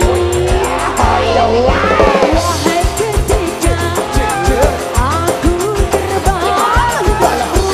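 Dangdut koplo music: a fast, steady drum beat with a bending melody line over it.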